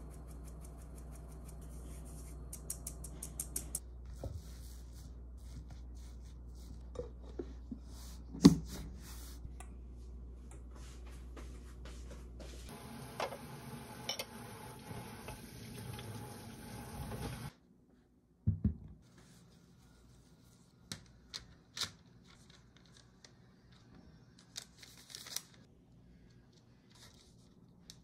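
Quiet kitchen handling sounds: a mesh sieve tapped in rapid light ticks over a glass bowl, then tap water running for several seconds and cutting off suddenly while dishes are washed, then a few scattered clicks and knocks.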